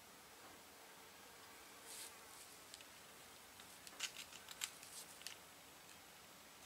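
Mostly near silence, with a quick cluster of light clicks and crackles about four to five seconds in as the battery lead and its locking-pliers clamp are worked against the starter motor on test; the starter does not spin.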